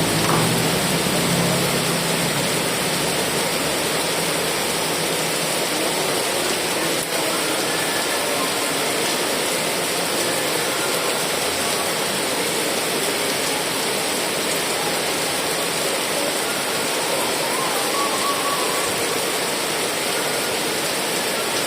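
Heavy rain falling steadily, an even, dense hiss. A low rumble underneath fades out in the first couple of seconds.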